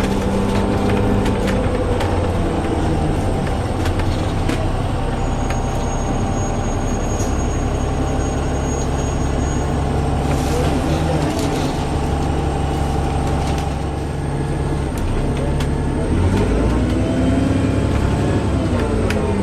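Interior of a Wright Pulsar Gemini 2 double-decker bus on a VDL DB300 chassis under way: engine and drivetrain running with a persistent drone. The engine note shifts in pitch, rising and falling about three quarters of the way through as the bus changes speed.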